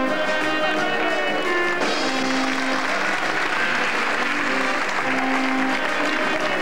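Band music with held notes playing throughout. An audience claps along over it from about two seconds in, fading before the end.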